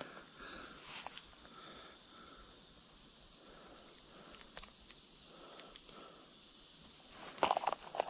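Steady high-pitched drone of insects such as crickets, with short chirping notes. A burst of rustling and clicks near the end, louder than the drone.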